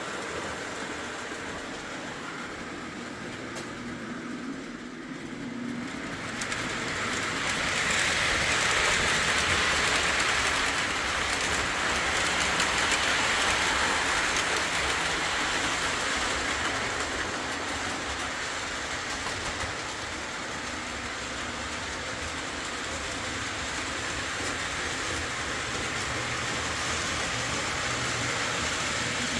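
Postwar Lionel O gauge train with Pullmore motors running on three-rail track: steady motor and wheel noise that grows louder about six seconds in and eases a little after about fifteen seconds.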